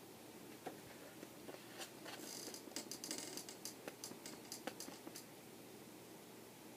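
Faint rustling of paper with small clicks, a picture book's page being handled and turned, busiest in the middle.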